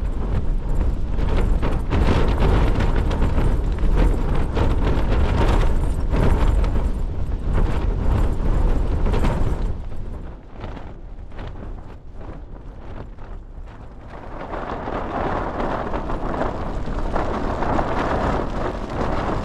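Strong wind buffeting a Hilleberg Soulo tent, the fabric flapping and rattling hard with wind noise on the microphone. The gusts ease about ten seconds in, then build again.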